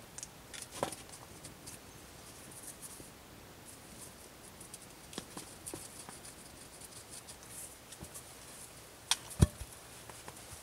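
Faint rustling, scraping and small clicks of a peeled wooden pole being handled against a shelter frame. About nine seconds in come two sharper knocks with a low thump, the loudest sound here, as the pole is set or dropped down.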